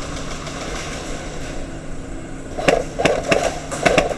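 Airsoft guns firing: about eight sharp shots in quick, uneven succession starting about two and a half seconds in, over a steady hiss of background noise.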